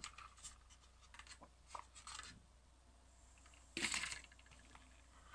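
Faint handling of a jelly-bean box and its packaging: scattered small clicks and rustles, with one brief louder rustle about four seconds in.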